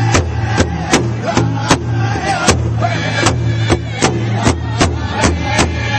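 Background music with a steady drumbeat, about two to three beats a second, over a sustained low bass and a wavering melody.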